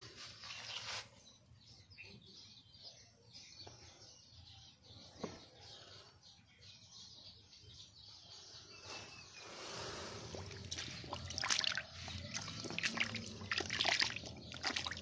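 Splashing and sloshing in a shallow muddy puddle as a hand grabs fish in the water, starting about ten seconds in with a run of sharp splashes. Before that only faint trickling is heard.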